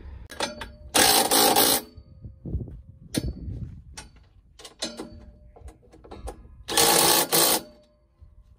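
Red cordless drill/driver run in two short bursts, about a second in and again about seven seconds in, driving fasteners into the metal cage of a hog feeder. Clicks and knocks of parts being handled come between the bursts.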